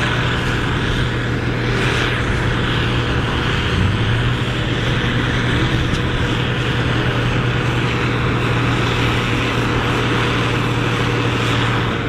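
Case IH 1455 XL's six-cylinder diesel engine running hard at steady high revs under tractor-pull load.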